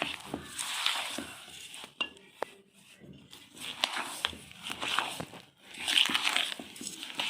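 Sugar being mixed into dry ground rice flour in a bowl: gritty scraping and rustling in repeated swells, with light clicks.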